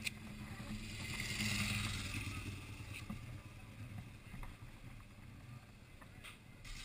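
Yamaha R6 inline-four engine idling low and steady while the bike stands still, with a swell of hiss about a second in and a few faint clicks.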